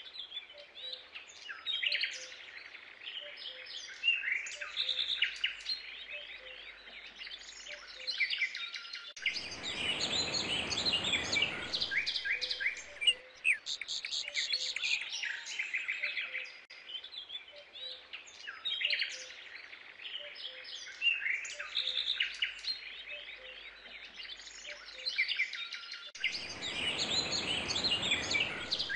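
Birdsong ambience: many small birds chirping and trilling, with a soft rushing noise swelling up twice, about ten seconds in and again near the end. The whole pattern repeats, as in a looped nature track.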